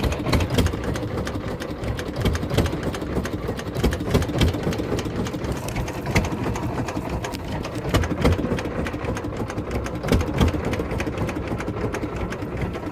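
Small fishing boat's engine running steadily under way, with a fast, even clatter.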